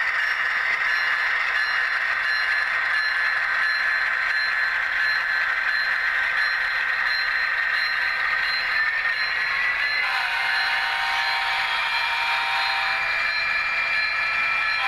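HO scale model train running past, its locomotives giving a steady mechanical hum made up of several high held tones. The mix of tones changes about ten seconds in, as the second locomotive goes by.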